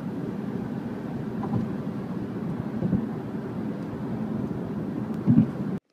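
Steady rumble of a moving vehicle heard from on board, with two brief louder bumps, the louder one near the end, before it cuts off abruptly.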